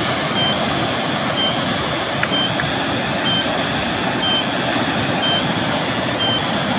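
Steady rushing of river water, with a short high beep repeating about once a second.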